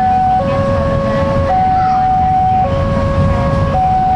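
Railroad level-crossing alarm sounding its two-tone warning, a lower and a higher tone taking turns about every second, over a low rumble.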